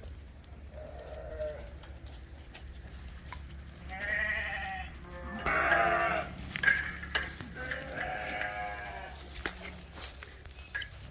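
Goats and sheep of a mixed herd bleating: about four wavering calls, the loudest about six seconds in, over a steady low hum.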